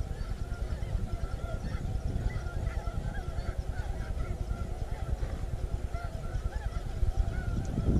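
Snow geese calling: many short, high honks overlapping continuously from a large flock, over a steady low rumble.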